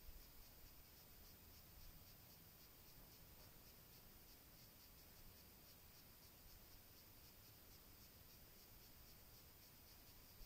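Near silence with a faint, steady insect chirr that pulses evenly several times a second, and a few soft rustles of antenna wire being handled in the first couple of seconds.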